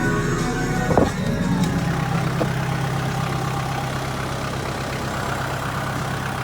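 A Kubota L5030 tractor's diesel engine idling steadily. About a second in, the end of some music cuts off with a sharp click, and the steady engine note carries on.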